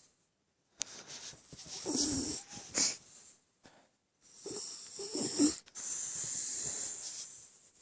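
A West Highland White Terrier snoring in deep sleep: two long snoring breaths, each a low rough snore with a loud hissing, wheezy breath over it.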